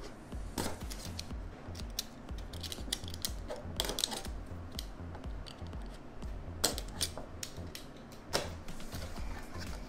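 Cardboard and plastic packaging being cut open with a utility knife and handled: scattered clicks, scrapes and taps, the sharpest about four, six and a half and eight and a half seconds in, over background music with a steady pulsing bass beat.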